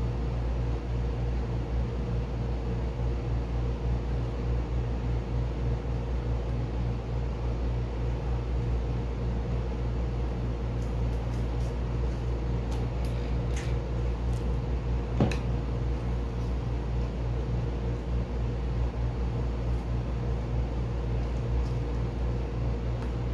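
Steady low hum of a running motor with a faint higher tone in it, and a few sharp clicks and crinkles of masking tape being peeled off a painted helmet, about 13 and 15 seconds in.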